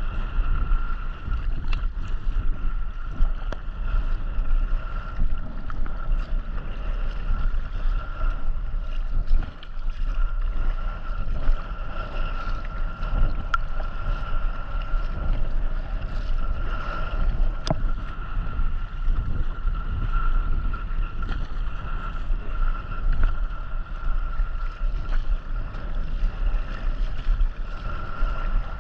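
Wind buffeting the microphone while out on the water in a kayak, a gusty low rumble over the wash of the water, with a steady high-pitched tone throughout and an occasional click.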